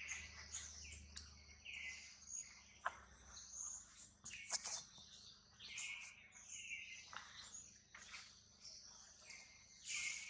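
Outdoor ambience: a steady high insect drone with short chirping calls repeating throughout, and a few sharp clicks.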